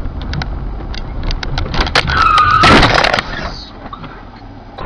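Car driving in city traffic, heard from inside the cabin with scattered clicks. About two seconds in comes a loud burst of about a second with a high, slightly falling squeal, the loudest part, before the sound drops off.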